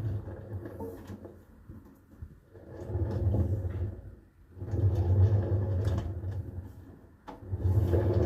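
Hotpoint WMD960G washing machine running a wash cycle, its drum turning in repeated surges: a low rumble that swells and fades every two to three seconds.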